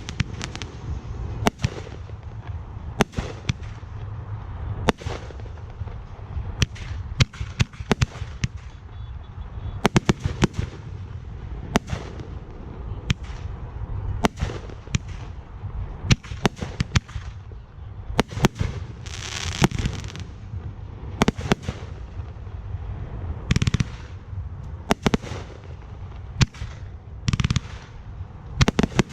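Fireworks display: aerial shells bursting one after another in sharp, irregular reports, sometimes several a second, over a steady low rumble, with a few longer hissing, crackling bursts.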